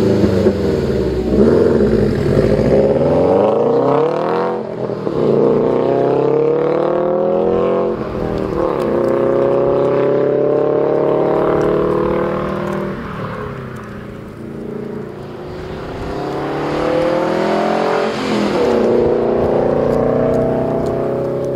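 Subaru Impreza WRX STI's 2.5-litre turbocharged flat-four, heard through a Corsa 3-inch cat-back exhaust with twin tips, accelerating through the gears. The note climbs in pitch, drops back at each upshift and climbs again, several times over.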